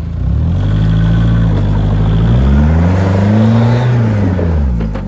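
Four-wheel-drive's engine revving under load on a steep off-road climb. The revs rise, ease off, climb to a peak about three and a half seconds in, then fall away.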